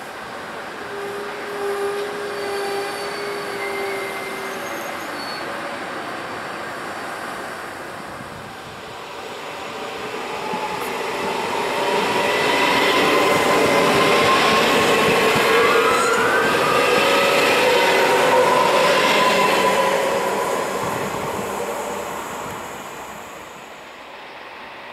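Ouigo TGV high-speed train passing through at speed. The rush of wheel and air noise swells over several seconds, holds loud for several seconds with whining tones over it, then fades away.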